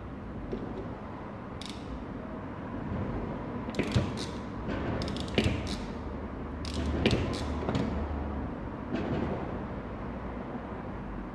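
Scattered clicks, knocks and clatters of hand-handled parts over a steady background hum, loudest about four, five and seven seconds in.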